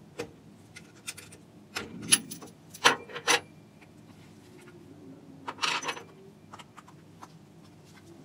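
Sharp metallic clicks and clinks as a vacuum gauge is handled and lifted off its stainless-steel flange fitting, then a brief rustle of handling.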